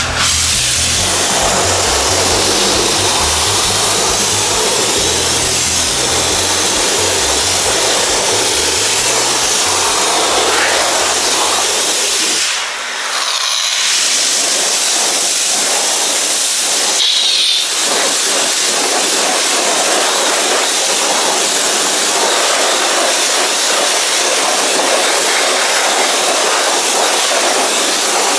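Karcher K3 Silent pressure washer spraying water, a loud steady hiss that briefly stops and restarts about 13 seconds in.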